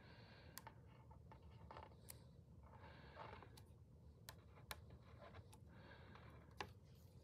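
Faint scratching strokes of a black marker writing numbers on a paper calendar sheet, coming in short spurts with a few light ticks in between.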